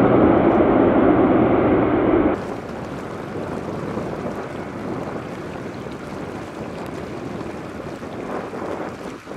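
Loud, steady aircraft engine noise that cuts off abruptly about two seconds in, followed by gusty wind buffeting the microphone.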